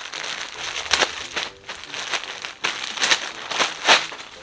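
Plastic garment packaging crinkling and rustling as a garment is opened and pulled out of its bag, in irregular crinkles with a few sharper crackles, the loudest near the end.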